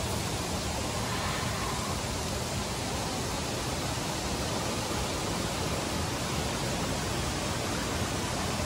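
Steady rush of flowing water from a rocky mountain stream, with no break or change.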